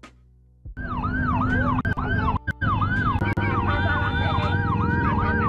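Ambulance siren in a fast yelp, quick rising-and-falling sweeps about three a second. It comes in about a second in and cuts out briefly around halfway.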